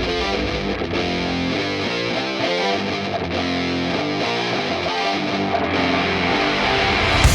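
Intro music: distorted electric guitar rock.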